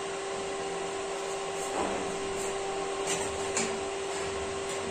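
A steady machine hum with a constant tone over an even hiss. Over it come a few faint light clicks and scrapes.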